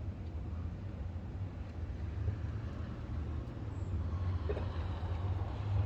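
A steady low rumble, swelling slightly about two-thirds of the way through.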